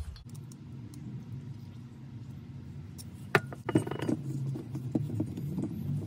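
Light metallic clinks and knocks of a chainsaw's cylinder and crankshaft assembly being handled on a bench while its crankcase mating surface is wiped with a rag, mostly in a cluster a little past halfway. A steady low hum sits underneath.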